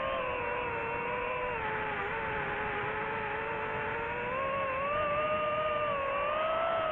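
Drone propellers and motors whining steadily, their pitch drifting slowly up and down as the motors adjust.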